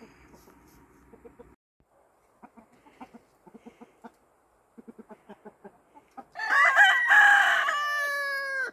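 Chickens clucking softly in short, scattered calls, then about six seconds in a rooster crows loudly: one long crow that ends on a drawn-out, falling note.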